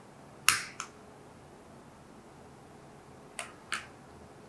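Hand-held spark lighter clicking as it is worked at a Bunsen burner to light it: two sharp clicks about half a second in and two more near the end.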